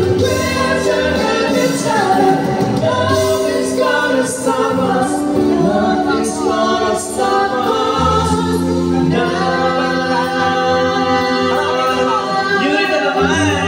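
A woman singing into a microphone, held notes over instrumental accompaniment.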